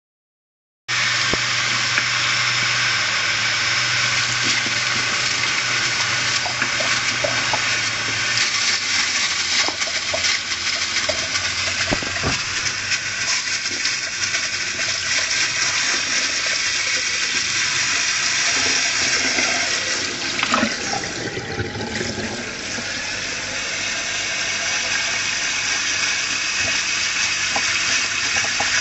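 Steady rush of cold water pouring over an opened, powered-on hard disk drive, with a low steady hum under it for the first several seconds.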